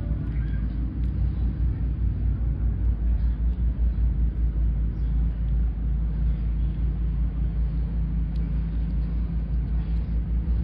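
Steady low rumble with a fast, even flutter in its loudness, such as a fan or motor running in the room.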